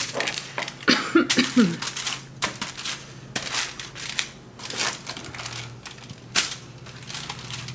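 Metal kitchen tongs clicking and aluminium foil crinkling as racks of raw pork ribs are turned over on foil-lined pans, a run of irregular clicks and rustles.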